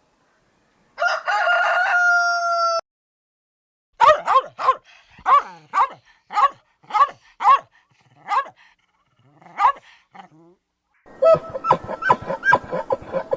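A rooster crowing once, a held call of about two seconds, then a dog barking repeatedly in short single barks for about six seconds. Near the end comes a rapid run of short animal calls.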